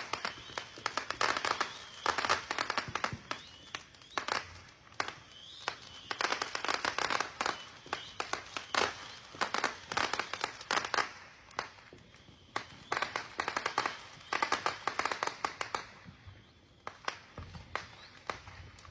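Consumer fireworks going off: clusters of sharp cracks and crackling bangs coming every second or so, with a thin whistle now and then.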